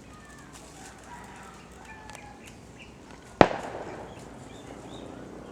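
A single sharp shot from an airsoft gun about three and a half seconds in, ringing out briefly, over faint bird chirps.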